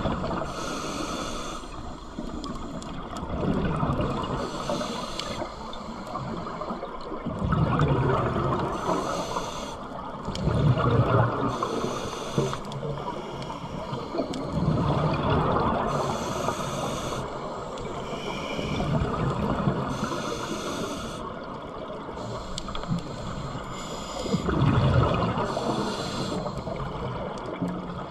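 Scuba diver breathing through a regulator underwater: a hiss on each inhale and a bubbling rumble on each exhale, in a slow regular cycle every three to four seconds.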